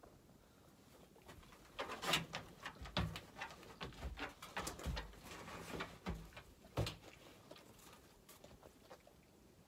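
A large wolf moving about on a wooden platform, its paws giving a run of clicks, knocks and soft thumps as it turns and sits down, busiest from about two to seven seconds in.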